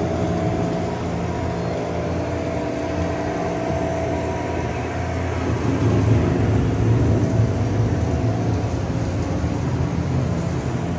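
Steady low mechanical hum and rumble of a dark indoor boat ride, with a few held tones over it. The low rumble swells about six seconds in.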